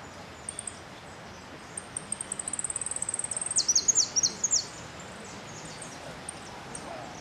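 Caged jilguero finch singing in a song contest: scattered high chirps, then a rapid high trill about two seconds in, ending in several loud, sharp downward-slurred notes.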